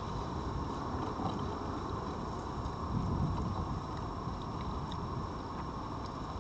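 Steady low rumble and hiss of outdoor background noise on a garden camera's microphone, swelling briefly about three seconds in.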